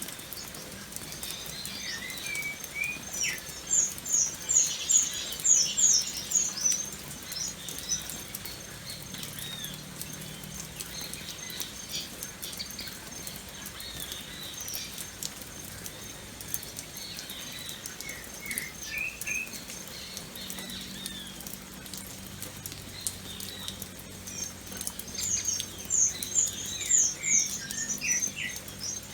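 Steady rain pattering, with birds chirping. A bird gives a quick run of high, falling notes about four seconds in and again near the end, with a few lower chirps in between.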